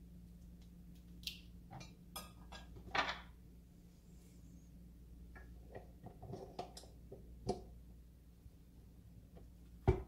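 Scattered clicks, scrapes and light knocks of kitchen handling: silicone-tipped tongs dropping chicken into a glass mixer bowl, then the paddle being fitted to a KitchenAid stand mixer. A sharp knock near the end, the loudest sound, as the mixer head is lowered into place. A low steady hum runs underneath.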